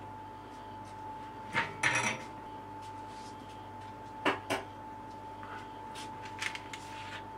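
Light clinks and knocks of a metal pastry ring and baking tray being handled: a cluster of clinks about two seconds in, two sharper knocks past the middle, and a few soft taps near the end, over a faint steady whine.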